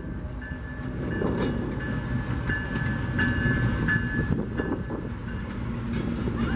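Double-stack container freight train rolling past with a steady low rumble and repeated clacks of steel wheels over rail joints. A thin, steady high squeal sounds from about half a second to four seconds in.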